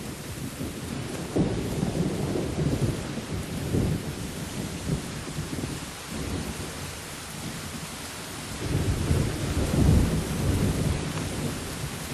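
Steady rain hissing with low rolls of thunder, which swell about a second and a half in and again around nine seconds in.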